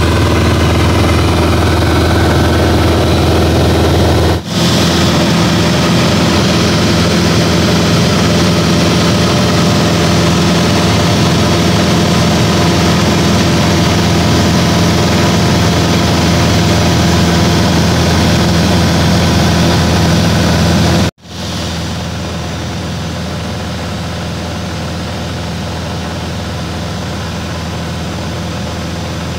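Steady drone of a light aircraft's engine and propeller heard inside the cabin in level flight. It dips briefly about four seconds in and cuts out abruptly a little past twenty seconds, then comes back somewhat quieter.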